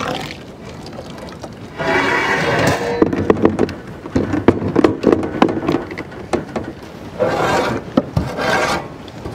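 A metal spoon scraping chocolate ice-cream mixture off an aluminium plate and knocking against a plastic blender jar: a dense run of sharp knocks and scrapes, busiest in the middle.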